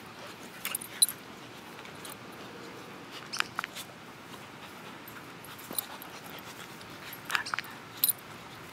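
Two dogs play-fighting: short, sharp yips and scuffles in a few clusters, about a second in, around three and a half seconds in, and again near the end.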